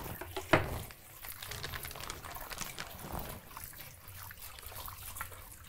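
Faint trickle of running water, with light clicks and clatter of kitchen utensils; one sharper knock about half a second in.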